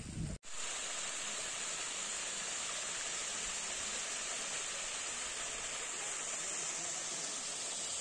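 Small waterfall spilling over granite rock into a natural pool: a steady rush of falling water.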